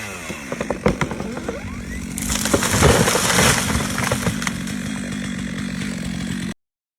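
A small engine running steadily, with scattered knocks and a loud, harsh stretch of noise from about two to four seconds in. The sound cuts off suddenly near the end.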